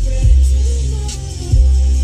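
Bass-heavy electronic/hip hop music played loud through a JBL Club 1024 10-inch subwoofer in an L-ported box tuned to 36 Hz. Deep, sustained bass notes dominate, changing pitch about a quarter second in and again about a second and a half in, with lighter melody and percussion above.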